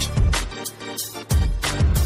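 Intro music with a heavy beat: deep bass-drum thumps and sharp percussion hits.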